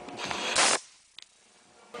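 Tools being handled on a workbench: a few clanks and rattles, and a short loud burst of hiss about half a second in, then near quiet with a single click.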